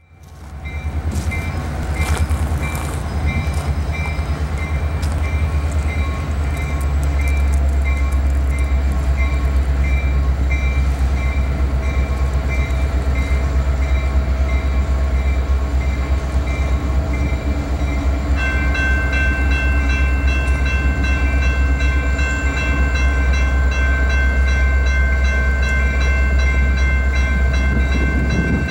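Approaching Norfolk Southern freight train: a heavy, steady low rumble with a rapidly repeating high ringing tone over it. About 18 seconds in, a steadier set of higher tones joins.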